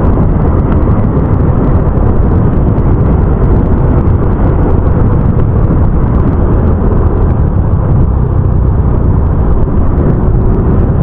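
Loud, steady wind rushing over the microphone of a moving scooter, with the Yamaha Mio i 125 scooter's engine running underneath.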